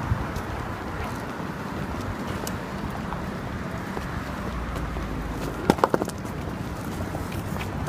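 Busy city street ambience: a steady wash of traffic and crowd noise, with a quick run of sharp clicks about six seconds in.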